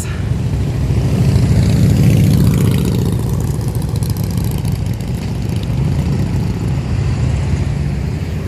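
Several motorcycles going by on the street, their engines running loudly, strongest about two seconds in.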